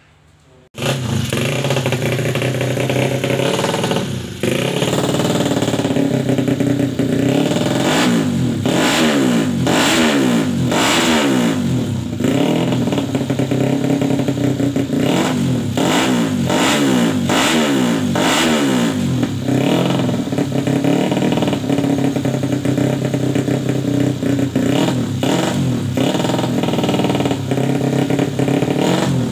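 Yamaha Jupiter MX four-valve single-cylinder motorcycle engine, custom-built with a 59.5 mm piston, running and revved again and again in quick throttle blips. It comes in abruptly about a second in.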